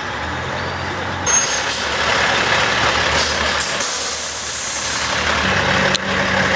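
Heavy diesel truck engine running steadily, with a long air hiss starting about a second in, like an air brake release. Near the end the engine note rises and there is a single sharp click.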